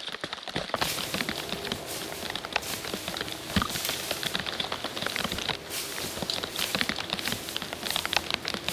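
Dense rustling and crackling in dry grass right beside the microphone, a steady run of small snaps and ticks.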